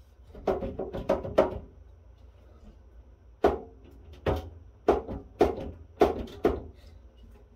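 Sheet-metal top cover of a rack-mount audio server knocking as it is pressed and worked to release its stuck front tabs. A quick cluster of about four knocks comes about half a second in, then six sharp knocks about half a second apart.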